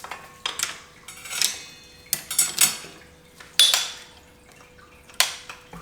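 New bicycle chain being handled and threaded onto the drivetrain, its links clinking and rattling against each other and the metal parts in several short bursts.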